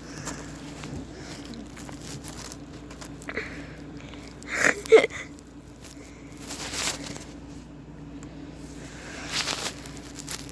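Cats scuffling and wrestling on a bed while high on catnip: bursts of rustling and thumping on the bedding, loudest a little before the middle, over a steady low hum.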